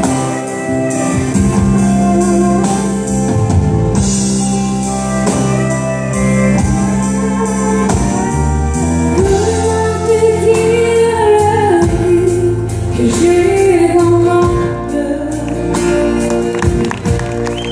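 Live country band with acoustic guitar and drum kit playing a song at a steady beat, with a male singer and a female singer sharing the vocal, her voice carrying the melody in the second half.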